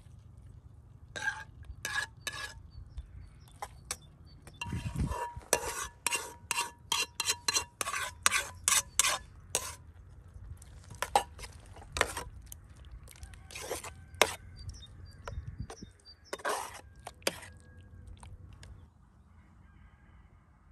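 A metal skimmer scraping cream out of a metal frying pan and clinking against the cooking pot: a run of quick metal-on-metal scrapes and clinks, densest in the middle, with a slight ring from the pan, then it goes quieter near the end.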